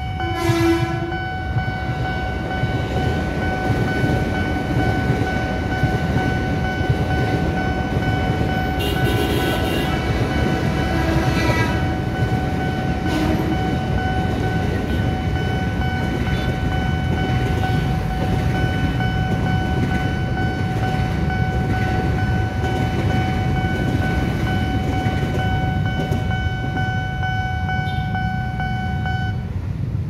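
KRL Commuter Line electric train's horn held in one long, unbroken steady tone, cutting off just before the end, over the low rumble of the train passing the crossing.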